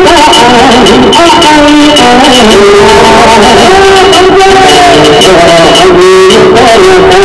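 Loud background music carrying a held, shifting melody line.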